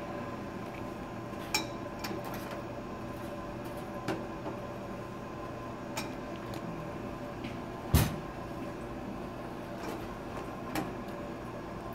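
Light knocks of a plastic squeeze bottle and a china plate against a stainless steel counter while red sauce is squeezed onto the plate, over a steady kitchen hum. The sharpest knock comes about eight seconds in, as the bottle is set down.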